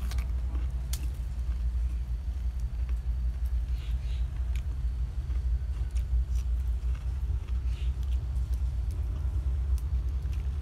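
Steady low rumble throughout, with a few faint wet chewing sounds from a man eating crispy deep-fried snakehead fish by hand, around four and eight seconds in.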